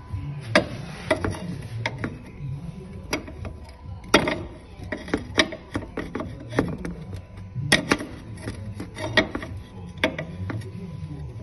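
Pry bar levering at a Renault Twingo's front lower ball joint, giving a series of sharp, irregular metal knocks and clicks as the joint shifts: play in the left ball joint.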